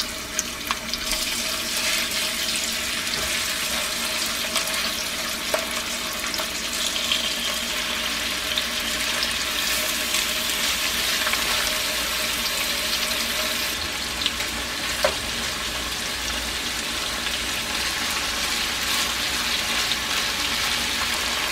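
Boneless chicken thigh pieces sizzling steadily in hot oil in a nonstick skillet, with a few light clicks of metal tongs as pieces are laid in and turned.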